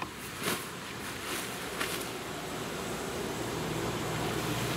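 A few brief rustles of tent fabric as a packed Coleman dome screen tarp is pulled from its storage bag and dropped on gravel, in the first two seconds. Then a vehicle's engine hum rises steadily, growing louder as it approaches.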